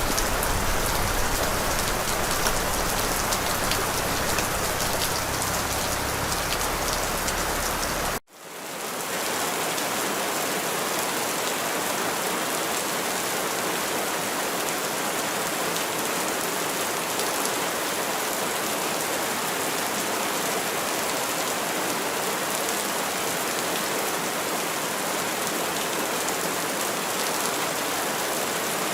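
Rain falling steadily, a continuous even hiss of drops. About eight seconds in it cuts out for an instant and resumes with less low rumble.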